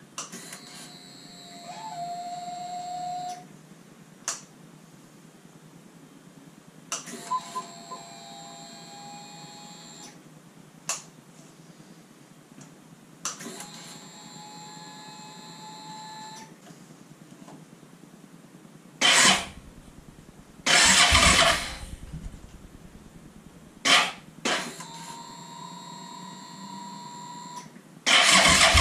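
Suzuki SV650 V-twin being cranked on its electric starter in four spells of about three seconds each, the starter whining and rising slightly in pitch. Between spells the freshly reassembled engine fires a few loud, short times without running. Near the end it catches and runs.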